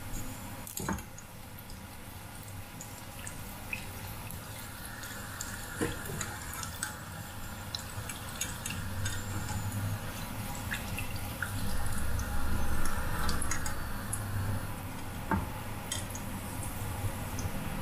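Sausages wrapped in white bread, on bamboo skewers, deep-frying in hot oil in a pot: steady sizzling and bubbling with scattered light clicks. It grows louder past the middle.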